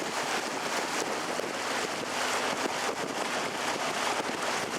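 Steady rushing noise of a canal tour boat under way, with wind on the microphone.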